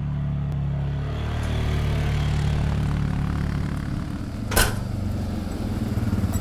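Several four-wheeler ATV engines running steadily as they ride up and close in, growing louder. A single sharp knock comes about two-thirds of the way through.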